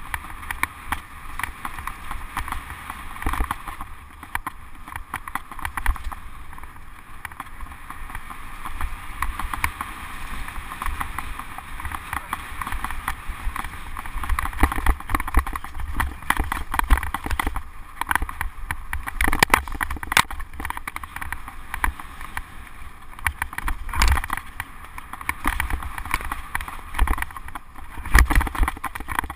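Mountain bike ridden fast down a leaf-covered dirt trail: a steady rumble of knobbly tyres on the ground with frequent knocks and rattles as the bike and its head- or bar-mounted camera jolt over bumps.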